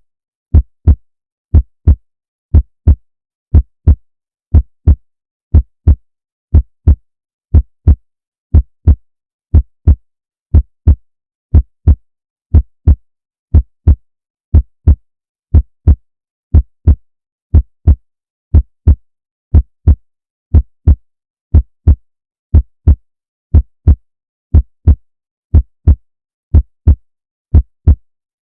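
A heartbeat's steady double thump, lub-dub, repeating about once a second with silence between beats.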